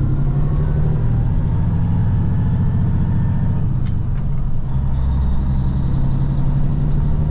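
Semi truck's diesel engine running steadily under way, a deep drone heard inside the cab, with one sharp click about four seconds in.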